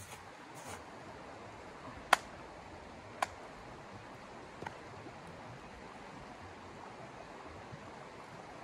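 Shallow river flowing steadily over its stones, with three short sharp clicks about two, three and four and a half seconds in, the first one loud.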